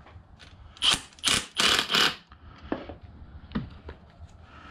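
Cordless impact driver with a socket, run in three short bursts about a second in while snugging the nuts on the winch circuit breaker's terminals, followed by a few light clicks of the socket and hardware.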